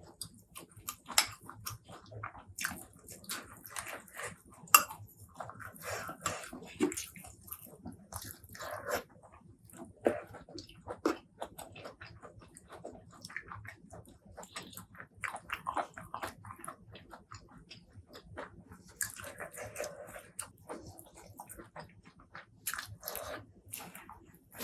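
Close-miked eating sounds from a meal of fried chicken and rice: irregular crunchy bites, chewing, and wet mouth clicks and smacks.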